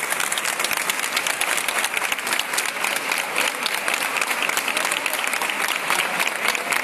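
A crowd applauding, with dense, steady hand-clapping.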